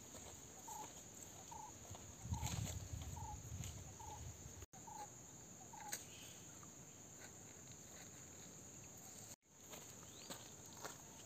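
A bird calling a short single note over and over, about twice a second, for several seconds. A steady high-pitched drone runs underneath.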